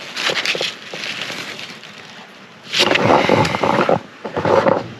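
Rustling and crackling of leaves and stems being handled or brushed, in three bursts.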